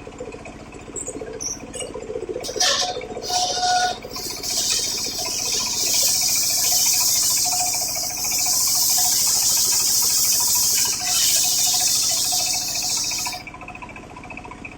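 Homemade circular saw cutting coconut-palm wood: the blade runs with a steady hum, bites into the wood twice briefly, then makes one long hissing cut of about nine seconds that stops suddenly near the end.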